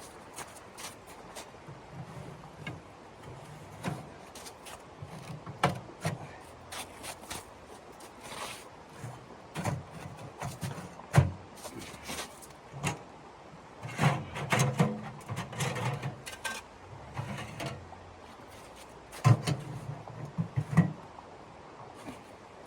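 Irregular clicks, knocks and soft thuds, as of objects being handled and set down, coming in bunches with short pauses between.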